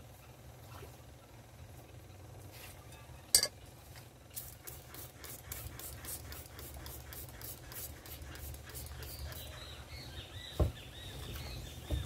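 Hand trigger spray bottle misting water into a glass terrarium bowl: rapid squirts, about four a second, for about five seconds. A sharp knock comes just before the spraying, and a thump near the end.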